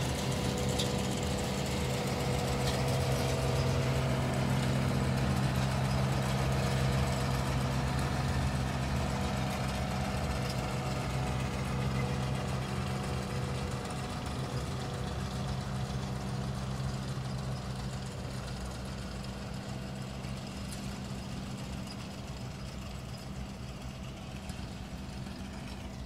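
An engine running steadily with a low hum, growing slowly fainter over the second half.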